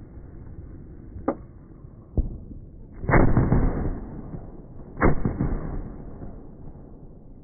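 Fireworks going off: two sharper cracks in the first couple of seconds, then two loud bangs about two seconds apart. Each of the loud bangs echoes and rumbles away slowly.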